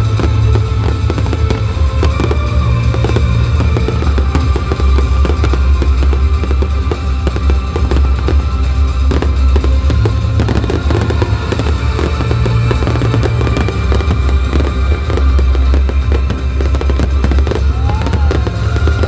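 Fireworks display: a dense, continuous run of booming and crackling bursts over a heavy low rumble, with loud music playing alongside.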